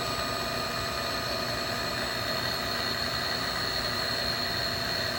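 Steady machine-shop drone: machinery running with a constant hum and a steady high-pitched whine, unchanging throughout.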